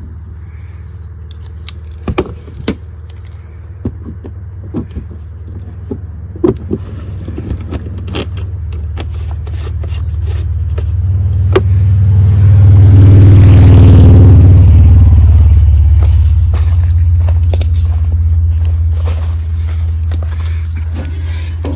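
A vehicle engine running with a steady low hum that swells louder for a few seconds past the middle, with scattered clicks and knocks in the first half.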